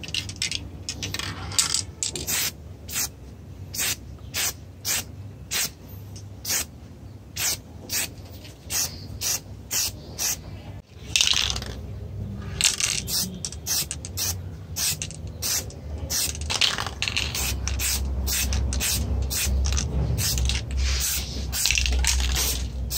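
Aerosol spray-paint can fired in short, quick hissing bursts, about one to two a second, with a short break about halfway through.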